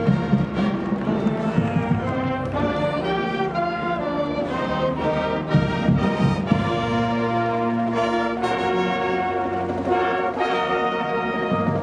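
A high school marching band playing a tune, led by trumpets and trombones holding full chords that change every second or so, with drum hits near the start and again about six seconds in.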